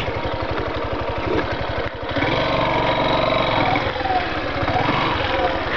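Yamaha Factor 150's single-cylinder four-stroke engine running at low revs as the motorcycle rides slowly along a dirt track. About two seconds in the engine note rises and steadies.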